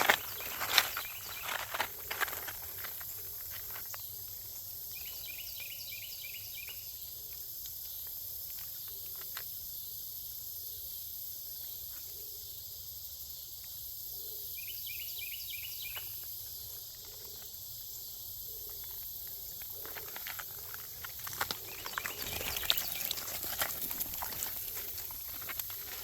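Outdoor creekside ambience: insects buzzing steadily at a high pitch, with a short quick call of about five notes heard twice. Crackling and rustling at the start and again near the end.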